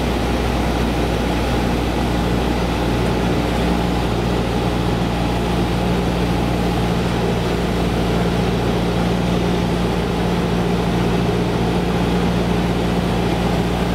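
Cessna 172's piston engine and propeller droning steadily in cruise, heard from inside the cabin as an even, low hum.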